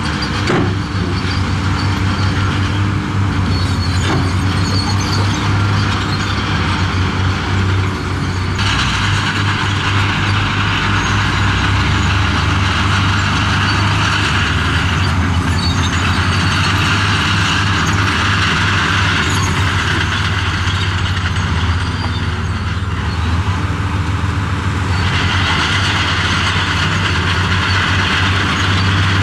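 Heavy diesel earthmoving machinery running steadily at close range, with a deep engine drone throughout. A higher rushing, grinding noise from the machine working comes in and drops out three times.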